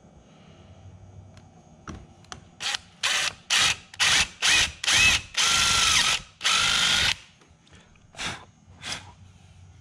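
DeWalt 20V cordless impact driver fitted with a 1/4-inch drill bit, drilling a hole through a trolling-motor shaft. It runs in a string of short trigger bursts, two of them longer, with the motor's whine rising as it spins up, then two brief blips near the end.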